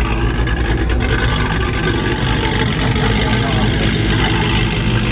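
Dodge Charger SRT Hellcat's supercharged V8 running steadily at low revs, a loud deep rumble with no revving, as the car creeps forward.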